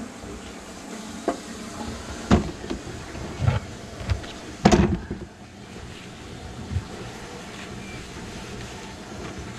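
Scattered knocks and clatters of debris and tools being handled on a sink cabinet floor, about six in all, the loudest about five seconds in, over a steady low background hum.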